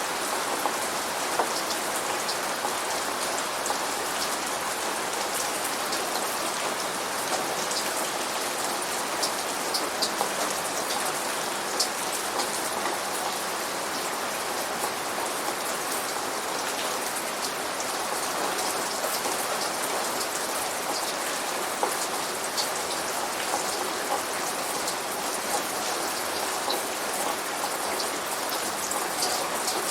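Steady rain falling, a constant even hiss with many scattered drops ticking on a surface.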